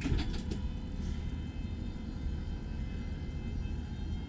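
Electric lift actuator of a 2010 Bayliner 315 Express Cruiser's engine hatch running steadily as it lowers the hatch, with a few clicks in the first half-second.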